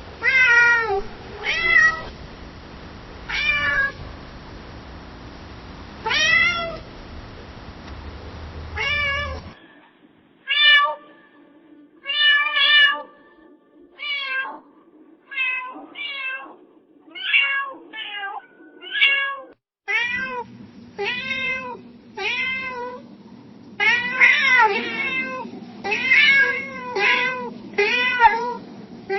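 Domestic cat meowing over and over, three separate recordings cut together: widely spaced meows first, then quicker runs of meows about once a second.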